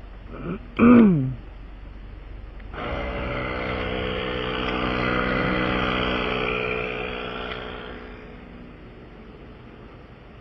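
A vehicle engine running, swelling louder over a few seconds and then fading away, like a vehicle passing or pulling up. A brief vocal sound comes about a second in.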